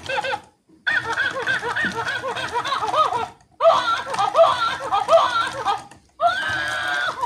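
Talking monkey toy playing high-pitched electronic giggling and chattering through its small speaker, in bursts with short breaks about a second in, after about three seconds and after about six seconds.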